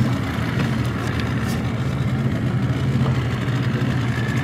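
Motorboat engine idling with a steady low drone.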